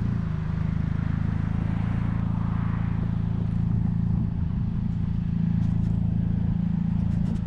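A motor vehicle's engine running at a steady speed, a low, even drone.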